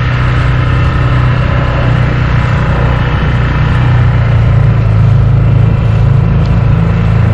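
Small outboard motor on a dinghy running steadily under way, with a low hum that grows a little louder about halfway through, over wind and water noise.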